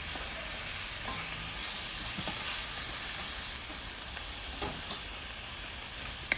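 Marinated goat meat frying in mustard oil in a pan, a steady sizzle as it browns. The meat is stirred, with a few sharp knocks of the utensil against the pan.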